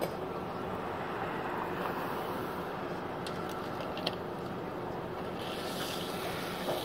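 Steady rushing of a fire hose spraying water onto a burning car, the water hissing into steam, with a few faint clicks about three to four seconds in.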